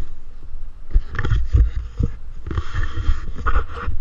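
Wind buffeting the microphone in loud, irregular low rumbles and thumps, with a fainter hiss over them.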